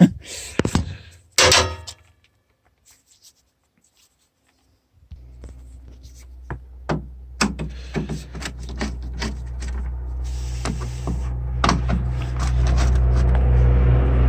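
Scattered clicks and knocks of hand work on a van's front-end panels and fittings, with about three seconds of near silence after the first two seconds. From about five seconds in, a steady low hum rises slowly in level beneath the clicks.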